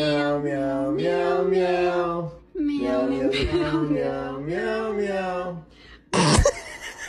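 A low man's voice singing unaccompanied in two slow phrases of long held notes that step up and down. About six seconds in there is a short, loud, rough burst.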